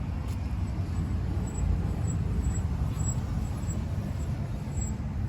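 Low, uneven rumble of outdoor background noise, with no distinct events.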